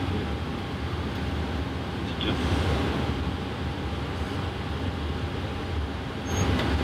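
Steady low rumble and air hiss inside a Boeing 777 flight deck as it taxis with the engines at idle, with a faint steady hum above it.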